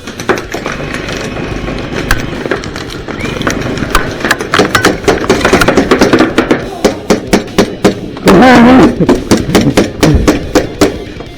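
Airsoft guns firing in a skirmish: sharp cracks that grow dense about four seconds in and come thick and fast. A loud shout rings out around the middle.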